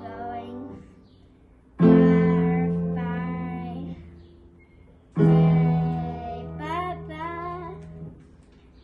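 Piano played slowly by a young beginner: a chord struck about two seconds in and another about five seconds in, each left to ring and fade, with a voice singing along over them.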